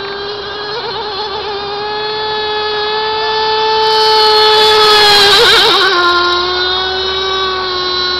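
CMB 45 two-stroke model engine in a radio-controlled boat, running flat out with a steady high-pitched whine. It grows louder as the boat comes past, then drops in pitch about six seconds in as it goes by and away.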